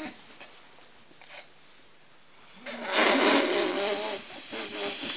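A sleeping man snoring: after a quiet stretch, one loud snore lasting about a second and a half, followed by a few softer sounds near the end.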